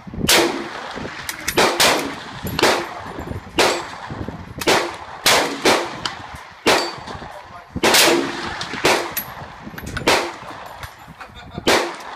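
Rifle shots on an open range, a dozen or so sharp cracks at uneven intervals of about one a second, each with a short echo. Too many shots come too fast for one bolt-action rifle, so several shooters are firing.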